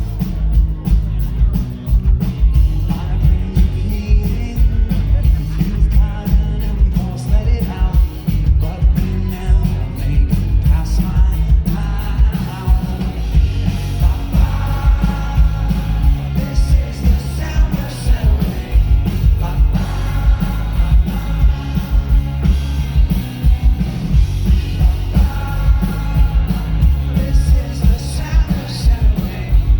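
Indie rock band playing live, amplified through a concert PA: a steady driving drum beat and heavy bass under guitars, with a lead vocal.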